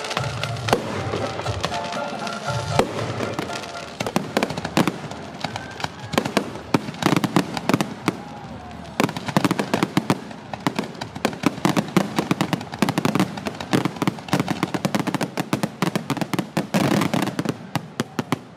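Fireworks display: a rapid, continuous run of shell bangs and crackling bursts, densest in the second half and thinning out just before the end.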